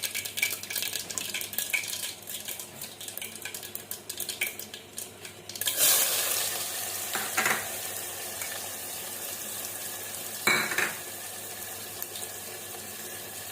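Mustard seeds crackling in hot oil in a tempering pan, then about six seconds in chopped vegetables go into the oil with a sudden loud sizzle that settles into a steady frying sizzle. A spoon knocks against the pan twice.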